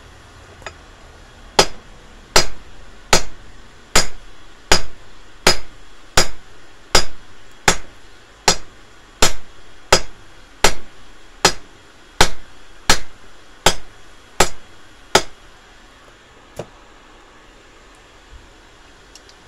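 Hand forging a tent peg: a hammer striking red-hot metal on an anvil, about nineteen even blows a little faster than one a second, each with a short metallic ring. The blows stop a few seconds before the end.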